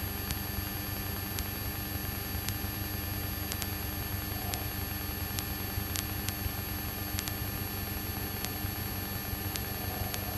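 Light single-engine aircraft's piston engine droning steadily at cruise power, over a hiss of static, with a few faint scattered clicks.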